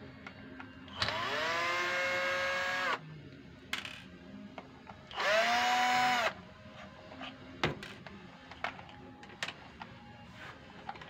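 Cordless screwdriver run twice, about two seconds then about a second, undoing screws from a massager's motor-gearbox cover; each time its whine rises as it spins up, then holds steady. A few small clicks and knocks of handled parts between the runs.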